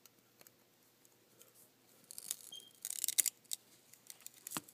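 Metal tweezers scraping and clicking against solid bismuth crystals as a crystal is pried at. A quiet stretch gives way, about two seconds in, to a run of sharp scratchy clicks, and there is a single knock near the end.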